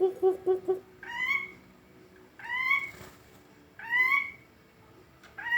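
Cucak ijo (green leafbird) calling in an odd voice. A quick stutter of low notes stops under a second in, followed by four separate drawn-out calls, each rising and then falling, about every second and a half.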